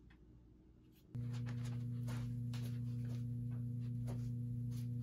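Near silence, then about a second in a steady low hum starts abruptly and holds, with faint light taps scattered over it.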